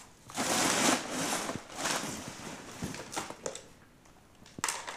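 Toy letter blocks being handled and stacked, giving several short sharp clicks and knocks as the blocks touch, with a couple of bursts of rustling in the first two seconds.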